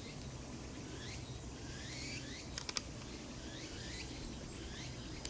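Outdoor ambience of many short, high chirps repeating irregularly, with a faint high pulsing buzz above them, over a low steady rumble. Two quick clicks come about halfway through.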